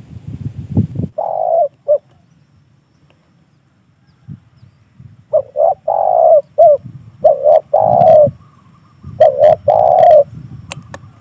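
Spotted dove cooing loud and close, in repeated coo phrases: a short phrase about a second in, then after a pause a longer run of coos and another phrase near the end. A low rumble comes in the first second and a few sharp clicks near the end.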